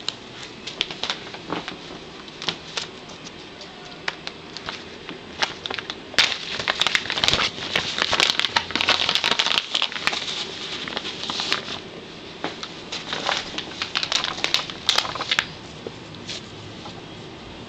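Irregular scratching, rustling and soft knocks as a cat pounces on and bats a small catnip toy across carpet and against a scratching post. The scuffling is busiest and loudest for a few seconds around the middle.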